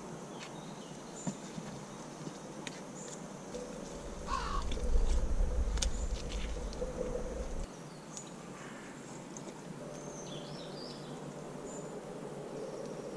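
Outdoor woodland ambience with scattered light clicks of a utensil working food in a frying pan, a few bird calls, and a low rumble for about four seconds in the middle that cuts off suddenly.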